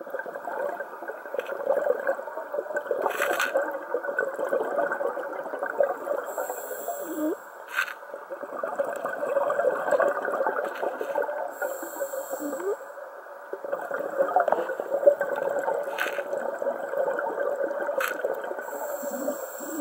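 Scuba diver breathing through a regulator underwater: each breath is a short hiss of inhaled air, then a long bubbling rush of exhaled air, about three breaths in all. A few sharp clicks are heard.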